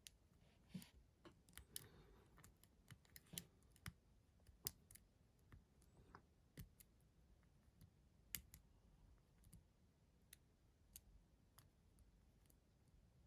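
Faint, irregular metallic clicks of a hook pick and tension wrench working the pin-tumbler cylinder of an antique mortice lock, a few clicks a second, thinning out after the first few seconds.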